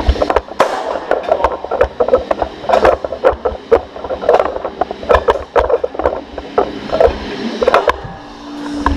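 Sorinex Root Hog push sled being driven along a gym floor, heard from a camera mounted on the sled: a low rumble with irregular knocks and rattles about two a second, easing off near the end.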